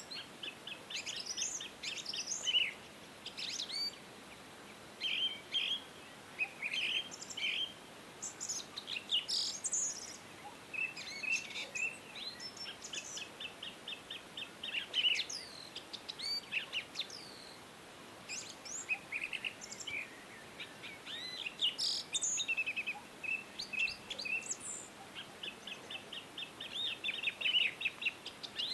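Small birds chirping and trilling: short high chirps and quick trills of evenly repeated notes, coming in clusters with short pauses between them.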